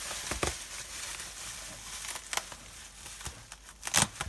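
Packing material rustling and crinkling as a box is unpacked by hand, with a few sharp crackles, the loudest about four seconds in.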